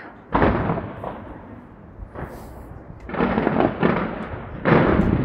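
Fireworks display going off: a sudden loud burst of bangs and crackling about a third of a second in that dies away, then fresh waves of bangs and crackle around three seconds in and again near the end.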